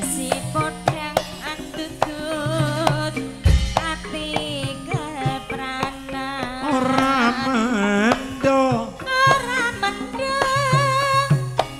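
Javanese gamelan music: sustained metallophone tones and kendang drum strokes under a singer's wavering, ornamented vocal line.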